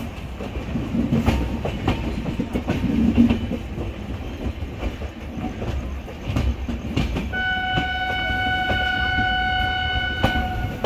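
Passenger train rolling with a steady rumble and irregular clickety-clack knocks of the wheels over rail joints and points. About seven seconds in, a locomotive horn sounds one steady blast lasting about three and a half seconds.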